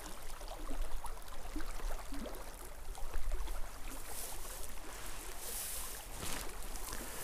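Steady rush of a flowing mountain stream, with a low rumble underneath.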